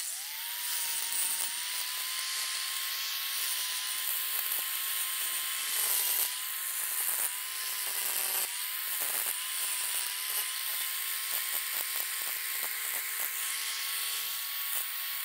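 4-inch angle grinder with a coarse grinding wheel spinning up and grinding weld buildup off the steel edges of a welding table: a steady high motor whine over a hiss of grinding, its pitch dipping briefly a few times.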